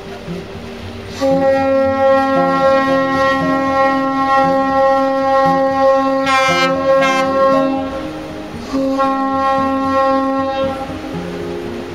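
Tugboat's horn sounding two long blasts at one steady pitch: the first about six seconds long, the second about two seconds.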